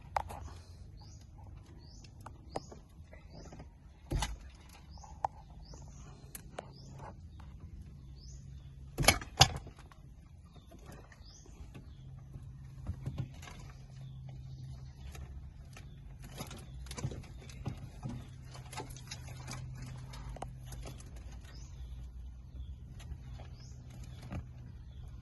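Scattered clicks and knocks of hand work on a car, with louder knocks about four seconds and nine seconds in, over a low steady hum. Birds chirp again and again in the background, short rising chirps.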